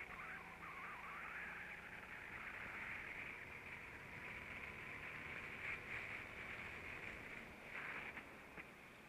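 Kart at speed, heard faintly and muffled from its onboard camera: engine and wind noise, with the engine note shifting in pitch through the opening corner.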